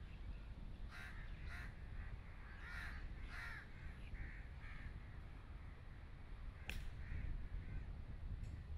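Crows cawing several times in the first half, then a single sharp click of a golf club striking the ball off the tee about two-thirds of the way through. A low steady rumble lies under both.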